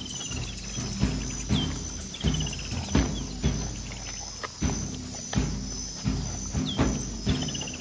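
Wild bush ambience: insects buzzing steadily and a high call that rises briefly, then falls in a quick trill, twice. Soft knocks come about every three-quarters of a second over low sustained music.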